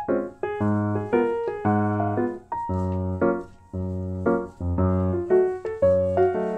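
Background piano music: chords struck about once or twice a second, each ringing and dying away.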